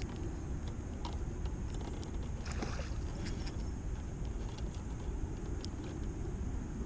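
Steady low outdoor rumble, of the kind wind or flowing water makes on a microphone, with a few faint scattered clicks.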